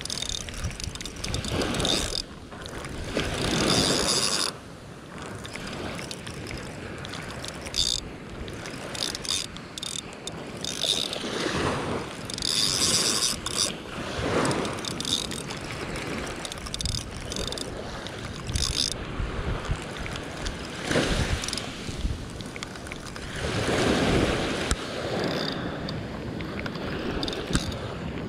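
Small surf washing up a sandy beach and draining back, swelling every several seconds, with wind on the microphone. Intermittent mechanical clicking runs through it.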